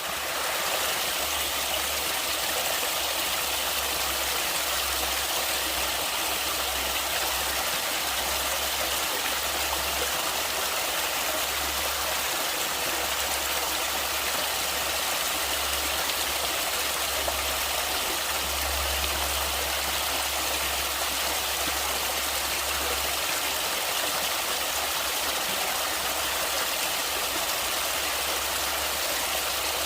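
Stream water rushing and splashing steadily, with a low rumble underneath through most of it that drops away about three quarters of the way through.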